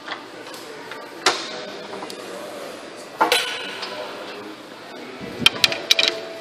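Sharp metallic clinks of a steel bar and tools against a Caterpillar C7 diesel engine as it is barred over by hand: a single clink about a second in, another about three seconds in, then a quick run of five or so near the end.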